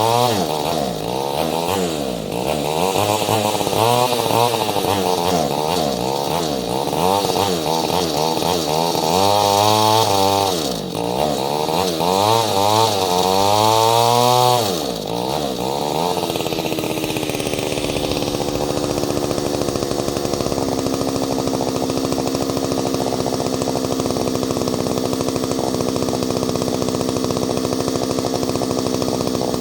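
Ported Solo 670 two-stroke chainsaw being revved over and over, its pitch rising and falling about once a second. About fifteen seconds in it drops back to a steady idle.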